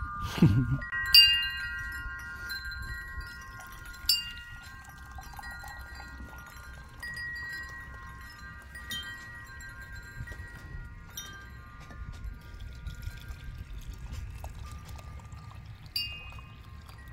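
Wind chimes ringing: several clear notes sound together and hang on, with fresh strikes every few seconds.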